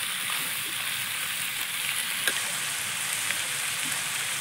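Chopped meat and onions sizzling in hot oil in a large wok, stirred with a metal spatula; the frying is a steady hiss with a few sharp clicks scattered through it.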